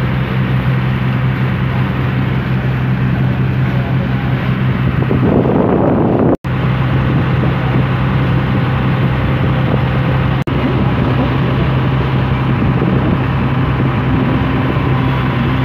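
Small harbour service boat's engine running with a steady low drone under wind and water rush on the microphone, with a louder rush of wind about five seconds in. The sound cuts out for an instant about six seconds in.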